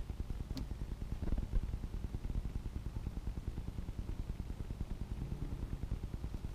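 A low, steady, fast-pulsing mechanical hum, with a faint click about half a second in.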